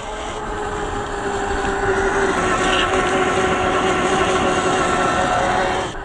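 CrossRC XT4 RC crawler truck driving past on dirt: its stock 540 brushed motor and geartrain whine steadily over the rustle of the tyres. The sound grows louder as the truck comes close, then drops abruptly just before the end.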